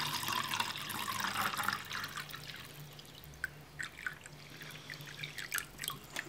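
Water poured from a plastic jug into a small plastic tank: a splashing stream that grows softer over the first two seconds or so as the tank fills, then scattered drips.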